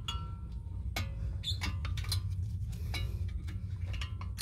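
Scattered light metallic clicks and clinks of a screwdriver prying at the spring clip of a VW Golf Plus front brake caliper, working the brake-pad retaining clip free, over a steady low rumble.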